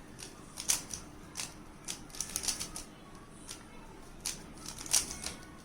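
Plastic 3x3 Rubik's cube being turned by hand, its layers giving a run of irregular clicks and clacks as the cube is set up for the next case.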